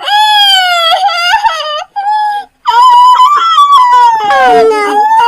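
High-pitched howling: long wavering calls that glide up and down in pitch, broken by a short pause about two seconds in, with a second lower-pitched voice joining near the end.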